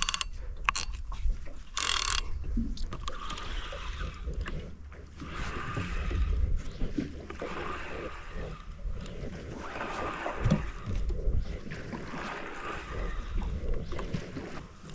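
Water lapping against the hull of a small boat in gentle swells, a hiss that rises and falls about every three seconds over a low wind rumble on the microphone, with one brief sharp splash-like burst about two seconds in.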